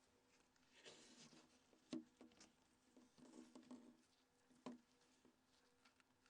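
Faint small clicks and scrapes of phone parts being handled with a tool while the flash is taken out of a Nokia N82's back cover. There are a handful of them, the loudest about two seconds in.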